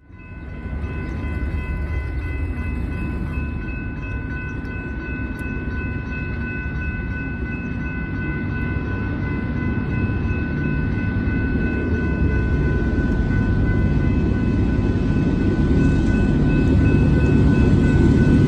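Grade-crossing warning bells ringing steadily, over the low rumble of a BNSF freight train's diesel locomotives, which grows louder as the train approaches.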